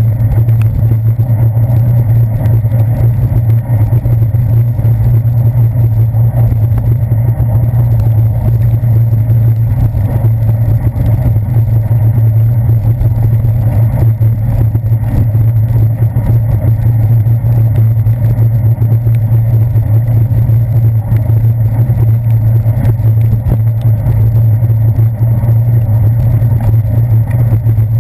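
Steady, loud low rumble of a bicycle ride heard through a handlebar-mounted GoPro Hero 2 in its sealed housing: tyre-on-wet-pavement and handlebar vibration mixed with wind noise, without a break.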